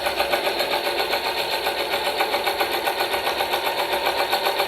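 A machine running steadily with a rapid, even clatter.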